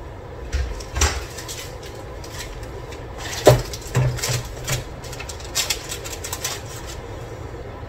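Kitchen utensil handling: a spatula tapping and scraping as stuffed pepper rings are lifted off a parchment-lined tray, giving a string of short knocks and clicks, the loudest about halfway through. Under them runs a steady low hum.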